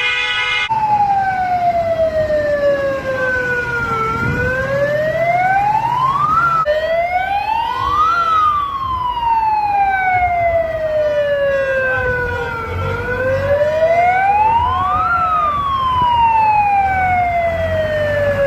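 A siren wailing in slow sweeps, its pitch falling and rising over several seconds each time, over the low rumble of vehicles.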